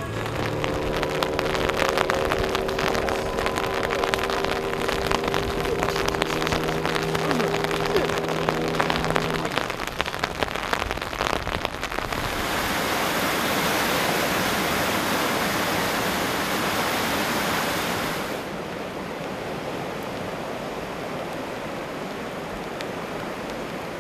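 Rain and rushing floodwater: a steady wash of noise, with pattering taps and a steady low hum for roughly the first ten seconds. The rush grows louder about twelve seconds in, then drops back about eighteen seconds in.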